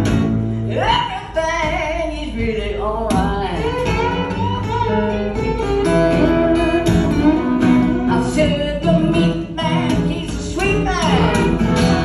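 Acoustic blues instrumental break: a harmonica plays over acoustic guitar and slide guitar, with notes sliding up and down.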